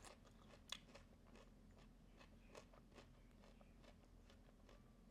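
Faint crunching and chewing of a raw vegetable, irregular crisp crunches with the sharpest one just under a second in.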